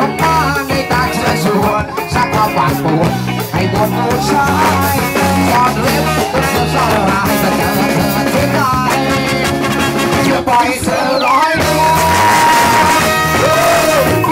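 Live ska-style band playing: trumpet and trombone over electric guitar, bass guitar and drum kit, with a singer. A long held note sounds near the end.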